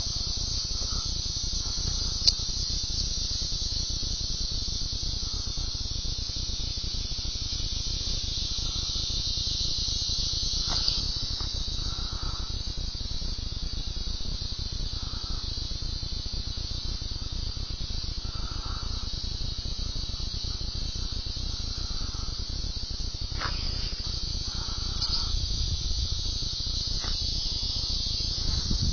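A summer insect chorus in the trees: a steady, unbroken high-pitched drone. A single sharp click comes about two seconds in.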